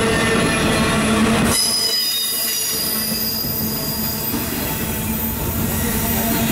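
Double-stack intermodal well cars rolling past, their wheels rumbling on the rails. About a second and a half in, a high-pitched wheel squeal sets in and fades over the next few seconds.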